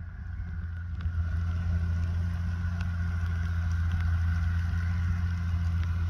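Tractor diesel engine running steadily while pulling a subsoiler, getting louder over the first second or two and then holding an even drone.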